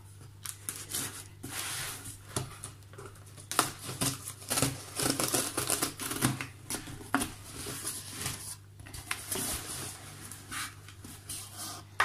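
Cardboard parcel being opened by hand: packing tape picked at, cut and torn away and the box flaps pulled open, a run of irregular scratchy tearing and rustling with sharp clicks and knocks.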